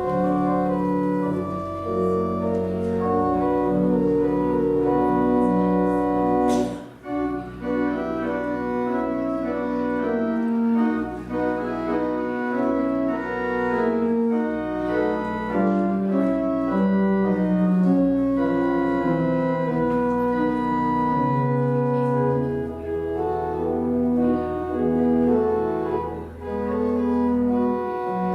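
Church organ playing slow, sustained chords over held deep bass notes, with a brief break about seven seconds in.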